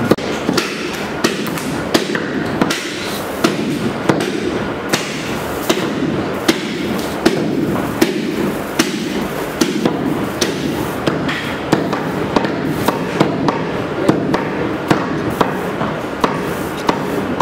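Butchers' knives chopping beef on wooden cutting boards: irregular sharp chops, about one or two a second, from several workers at once, over a steady background din.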